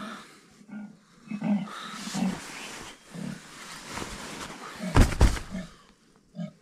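A series of short, low grunting calls from outside the tent, which the camper takes for a leopard. Two loud knocks about five seconds in.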